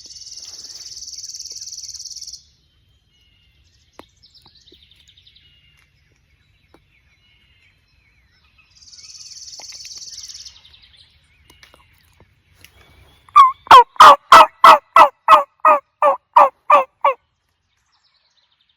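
A loud run of about a dozen turkey yelps, roughly three and a half a second, each note dropping in pitch. Before it come two high, buzzy songbird trills, one at the start and one about nine seconds in.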